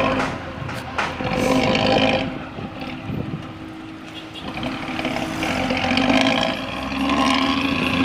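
Bus diesel engine running through a tinny, raspy aftermarket exhaust (kenalpot cempreng). Loud for the first two seconds, dropping around the middle, then building again toward the end.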